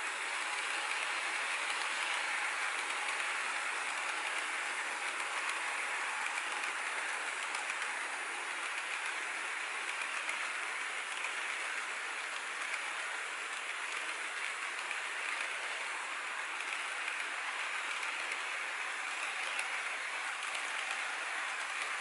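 HO-scale model freight cars rolling past on sectional track, their wheels making a steady, even rolling hiss with no engine sound.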